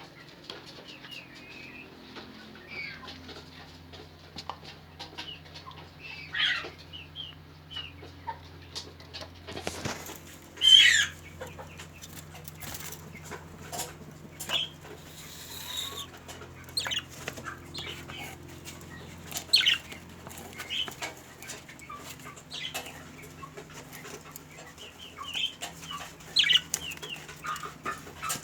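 Domestic birds calling, chickens clucking among them: many short separate calls scattered throughout, the loudest about eleven seconds in, over a faint steady low hum.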